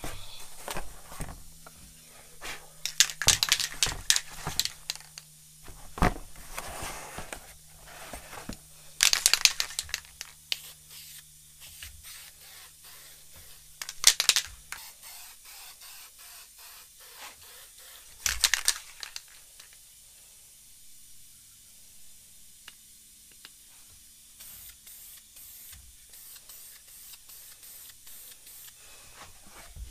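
Cardboard crinkling and scraping as it is handled, and an aerosol can of primer surfacer being shaken and sprayed in several short hissing bursts.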